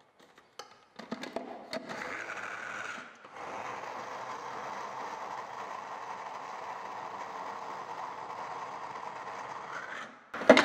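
Electric mini food chopper running with its lid pressed down, grinding shredded coconut with a little egg white into a paste. It starts about a second in, runs briefly, stops for a moment, then runs steadily for about seven seconds and cuts off near the end.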